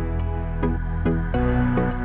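Gentle background music: a melody of notes starting about twice a second over a steady bass.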